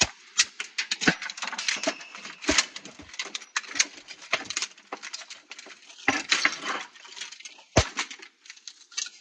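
Metal and plastic parts of an old TV tuner clattering and snapping while being pried and ripped apart by hand: a dense run of sharp clicks and rattles, with several louder cracks and knocks.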